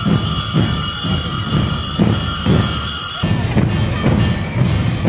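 Folión carnival percussion: drums beating a steady rhythm about three to four times a second, with the large bells on the costumed dancers' belts ringing along. The high ringing stops abruptly about three seconds in, leaving the drumming.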